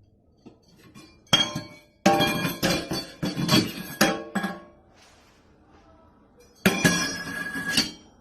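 Repeated clinking and clattering of glass or other hard objects, with ringing, in three bursts: a short one about a second in, a longer run of clinks after it, and another burst near the end.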